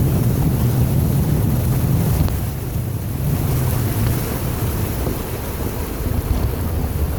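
Steady low rumble and hiss of wind buffeting the microphone outdoors.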